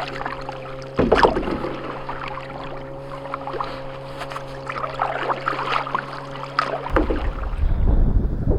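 Water splashing and dripping around a canoe, with scattered paddle and hull knocks over a steady low hum. About seven seconds in, the hum stops and wind buffets the microphone.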